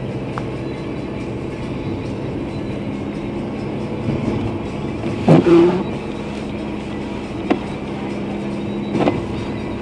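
Car driving, heard from inside the cabin: steady engine and road hum. A loud short thump about five seconds in, with lighter knocks after it.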